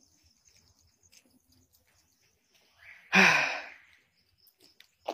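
A man's loud, breathy sigh or gasp, once, about three seconds in, with a brief voiced start. It fits a man struggling for breath.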